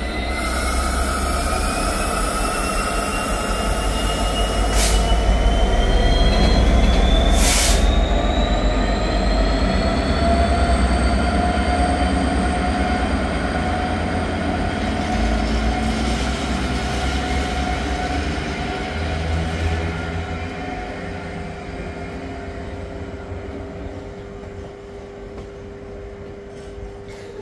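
Class 66 diesel freight locomotive, with its EMD two-stroke engine, running as it hauls empty flat wagons away. Wheel squeal rises slowly in pitch over a low rumble, with two sharp clangs about five and eight seconds in. The sound fades over the last several seconds as the train draws off.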